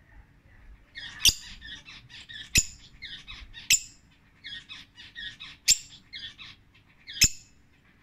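Rosy-faced lovebird chattering in quick high chirps, broken by five sharp, loud, shrill calls a second or two apart.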